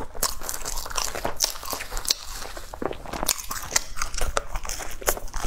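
Close-miked biting and chewing of a soft, cream-filled bread roll, with many short, sharp wet mouth clicks.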